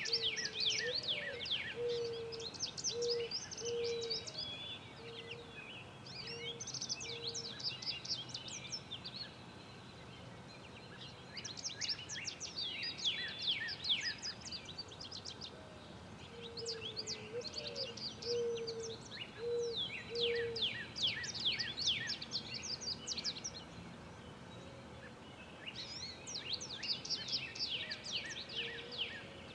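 Outdoor birdsong: bouts of rapid, high twittering chirps from small songbirds, each a few seconds long with short pauses between. Twice, a low phrase of four or five soft hooting notes sounds under them, the first note rising slightly.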